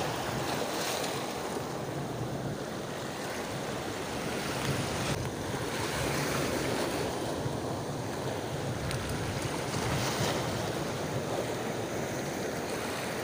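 Rough, choppy sea washing and breaking around a small boat, with wind blowing across the microphone.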